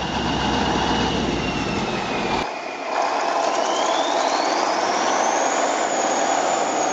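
KrAZ-255B truck's V8 diesel engine running under load, with a high whine that rises in pitch partway through. About two and a half seconds in, the deep rumble drops away abruptly.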